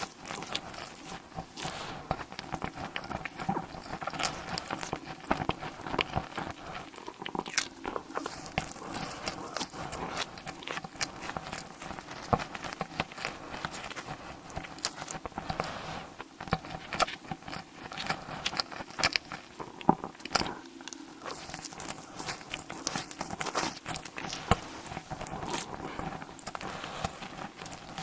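Close-miked ASMR eating: crunchy bites and chewing, a dense run of irregular crisp crackles.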